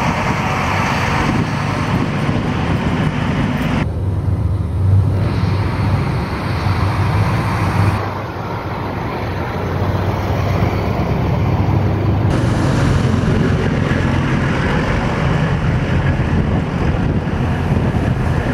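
Diesel engines of heavy 8x8 military trucks running steadily as a column of missile-system vehicles drives past, a continuous low rumble. The sound changes abruptly a few times where the footage is cut.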